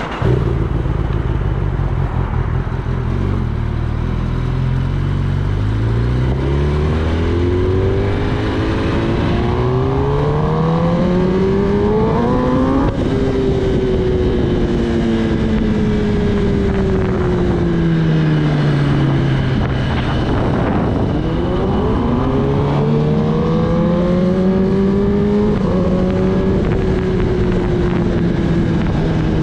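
Kawasaki Ninja ZX-10R's inline-four engine pulling away and accelerating, its pitch climbing in steps through the gears. There is a sharp break about halfway through, then the pitch falls, climbs again and settles into a fairly steady cruise near the end.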